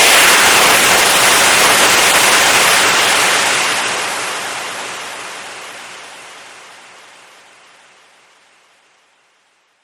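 Compressed air escaping in a loud, steady rushing hiss that slowly dies away over several seconds and is gone about nine seconds in, as a tank or line empties.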